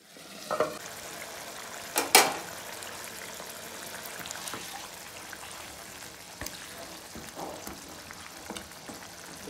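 Potatoes in gravy simmering in a metal kadai on a gas stove, a steady bubbling hiss, with two sharp knocks against the pan about two seconds in.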